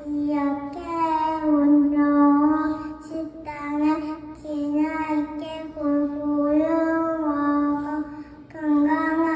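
A young child singing a simple melody in phrases of long, held notes.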